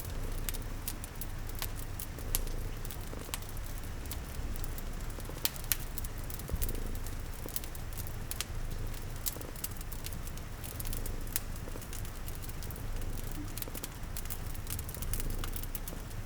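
Fireplace crackling, with scattered sharp pops and snaps, over a steady hiss of rain and a low steady rumble underneath.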